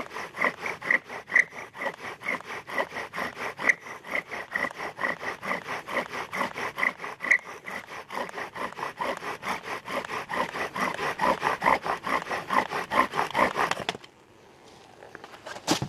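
Bow drill fire-making: a wooden spindle squeaks and grinds in the fireboard notch with each fast back-and-forth stroke of the bow, in a steady rhythm of several strokes a second. The bowing stops abruptly about two seconds before the end, and one short, sharp sound follows just before the end.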